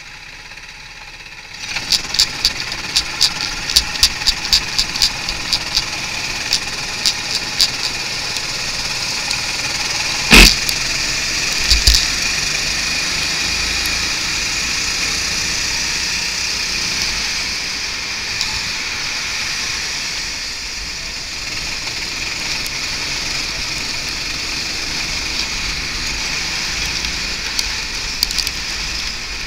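Rental go-kart engine running steadily under way, heard from a camera mounted on the kart. A row of sharp knocks sounds from about two to eight seconds in, and a single loud bang about ten seconds in, with a smaller one soon after.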